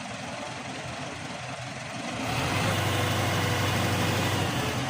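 An engine running steadily, growing louder about two seconds in and holding there.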